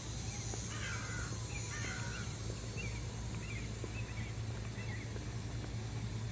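A crow calls repeatedly: two longer calls in the first two seconds, then several short, higher calls, over a steady low hum.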